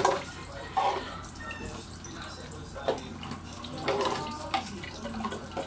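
Tap water running onto and through an electric fan's wire guard as it is rinsed and rubbed by hand, with a few short knocks and clinks of the grille being handled.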